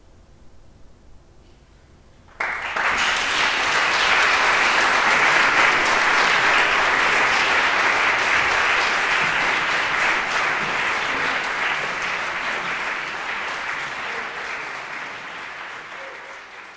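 Audience applauding in a concert hall, starting suddenly after a short hush about two seconds in, holding steady and then slowly thinning out near the end.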